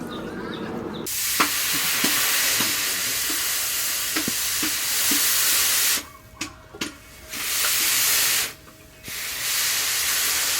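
Harsh hiss of steel being ground on an abrasive machine, in three passes that start and stop abruptly, with scattered clicks and a faint motor hum in the gaps.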